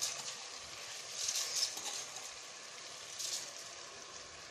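Soaked, drained rice poured into hot oil and masala in a pressure cooker, with a soft sizzle that swells briefly twice as the rice lands.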